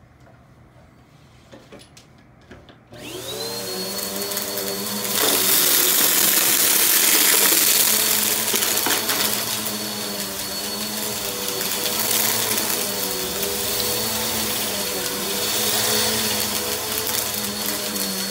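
Bissell vacuum cleaner switched on about three seconds in, its motor spinning up to a steady high whine over lower humming tones. It gets louder a couple of seconds later and runs on steadily.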